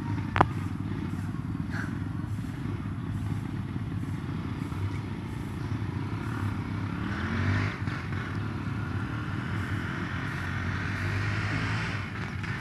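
Steady outdoor rumble of motor traffic, with a vehicle passing, its pitch rising, around the middle and another swell near the end. A single sharp click about half a second in.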